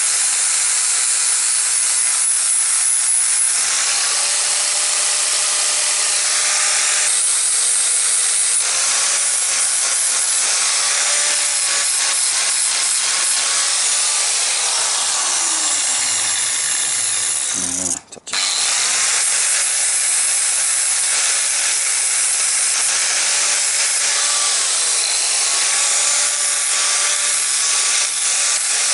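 Angle grinder grinding steel rod, a steady hissing grind over the motor's whine, whose pitch sags and recovers again and again as the disc is pressed onto the metal. The sound drops out briefly about two-thirds of the way through.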